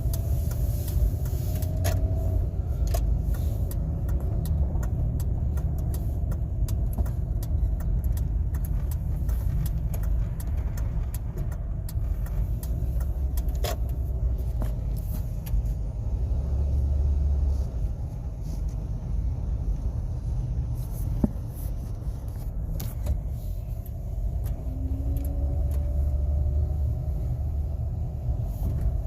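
2006 Ford Escape running: a steady low rumble with faint shifting engine tones and scattered light clicks and rattles.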